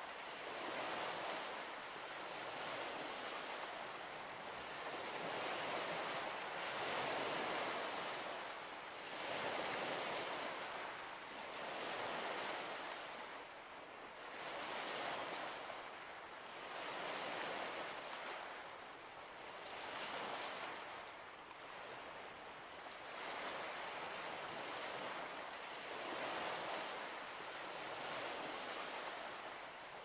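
Waves washing onto a shore in surges that swell and fade every two to three seconds.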